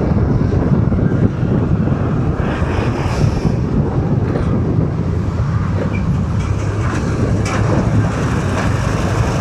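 Steady, loud low rumble of road traffic heard from a moving motorcycle riding among heavy trucks: engine and road noise.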